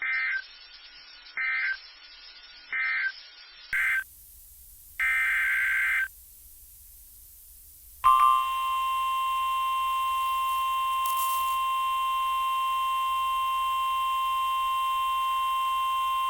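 Emergency Alert System SAME data bursts: three short, buzzy bursts of digital tones about 1.3 s apart, the end-of-message code closing the flash flood warning. Then come a short burst and a longer one-second burst of the same kind. About eight seconds in, a steady single tone near 1 kHz with its overtones begins: the NOAA Weather Radio 1050 Hz warning alarm tone that announces the next alert.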